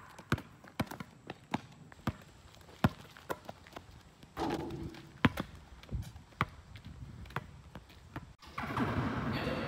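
A basketball being dribbled on asphalt: a steady run of sharp bounces, about two to three a second. Near the end there is a louder stretch of noise.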